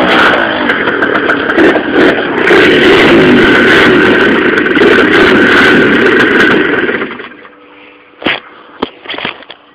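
Tuned two-stroke scooter engine with Stage6 high-end tuning parts, running loud. About seven seconds in the sound drops away sharply, and a few short sharp clicks follow.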